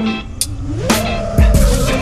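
Hip-hop backing music with a steady drum beat; the drums drop out briefly and kick back in about a second in.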